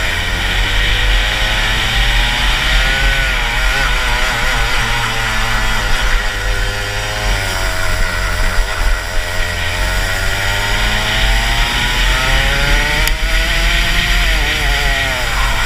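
Rotax Max 125cc single-cylinder two-stroke kart engine at full race pace, its pitch dropping into each corner and climbing again on the throttle, about four times, with low wind rumble on the microphone. The kart is geared long (72/12) for this twisty track, so it pulls out of the corners more slowly than it should.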